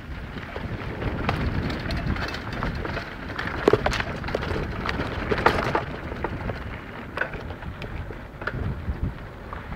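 Mountain bike riding over a dry dirt singletrack: tyres crackling on grit and the bike rattling with many small sharp clicks over a steady low rumble.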